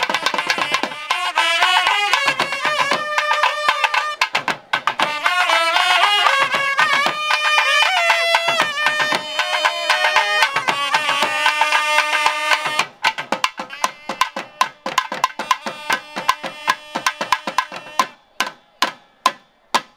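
Nadaswaram, the South Indian double-reed horn, playing a melody over thavil drum strokes. About thirteen seconds in the melody stops and the thavil drums carry on alone, thinning out to a few single beats near the end.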